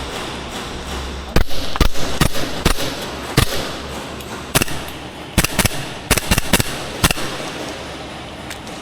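Airsoft guns firing: about a dozen sharp cracking shots at irregular intervals, single and in quick clusters, starting about a second in and stopping shortly before the end.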